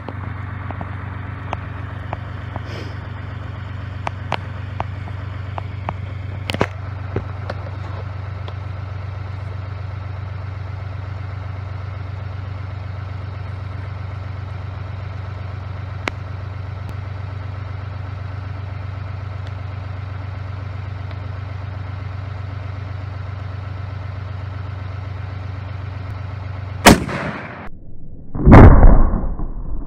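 A single shot from a Serbu RN-50 .50 BMG single-shot rifle fitted with a muzzle brake, very loud, about 27 seconds in. About a second and a half later comes a second loud boom with a heavy low rumble. Before the shot there are a few small clicks and knocks over a steady low hum.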